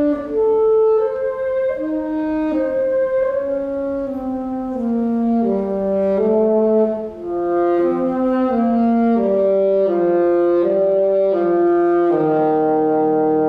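Saxophone playing a slow classical melody of held notes that step up and down, over a lower accompaniment. About twelve seconds in, a sustained chord enters beneath it.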